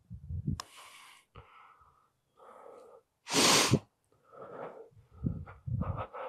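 A person sneezing once, a little past halfway, the loudest sound here, with scattered low thuds around it.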